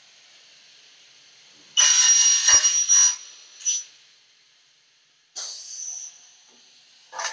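Aluminium double-head cutting machine at work: bursts of harsh, hissing noise with a high ringing tone, the loudest lasting over a second and holding a sharp knock. A shorter burst follows, then another about five seconds in.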